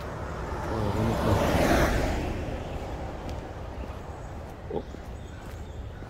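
A car driving past on the adjacent road, its tyre and engine noise building up, loudest about a second and a half in, then fading away within a second.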